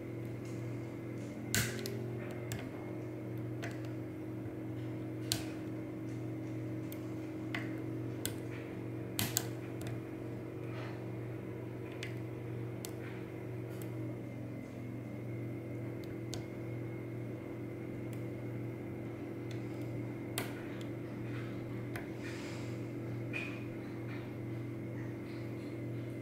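Scattered small metallic clicks and ticks of a pick working the pins of a Goal V18 high-security dimple lock under tension, a few of them sharper. Underneath is a steady low hum.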